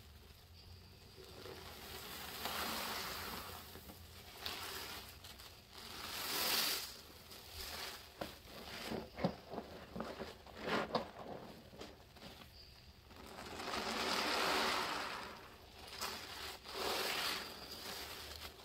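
Soapy sponge packed with Roma laundry powder and dish soap being squeezed and kneaded by gloved hands: wet squishing and gritty crunching of the powder paste. The squeezes come in slow swells, with a run of short sharp crackles around the middle.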